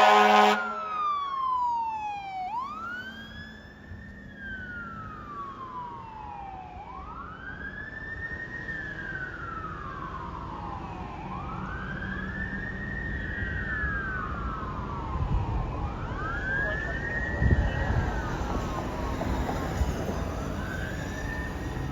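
Fire engine's siren on a slow wail, rising quickly and falling slowly about every four seconds. An air horn blast cuts off in the first half-second, and a low thump comes about two-thirds of the way through.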